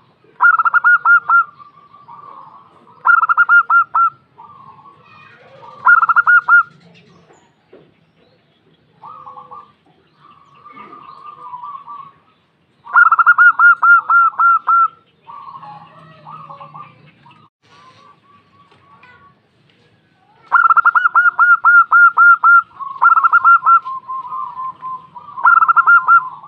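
Female zebra dove (perkutut) calling: about seven loud bursts of rapid, evenly repeated staccato cooing notes, each a second or two long, with softer, rougher calls in between.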